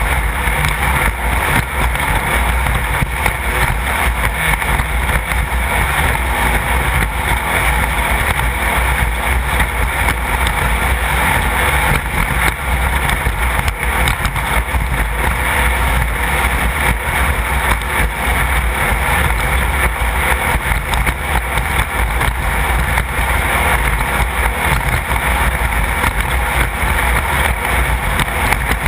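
Class 1600 off-road race car's air-cooled Volkswagen 1600 engine running at a steady pace, loud throughout with no clear revving up or down.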